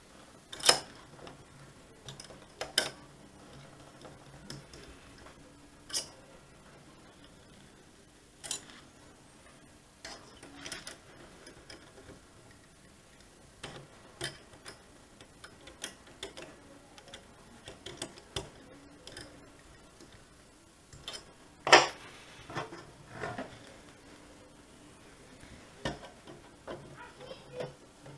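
Irregular small metallic clicks and taps of a screwdriver and screws against the metal casing of a VW RNS510 radio unit as screws are driven in by hand. The sharpest knock comes a little past the middle.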